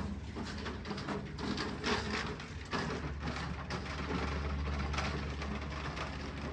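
Lawn mower engine running steadily, with uneven surges of noise over it.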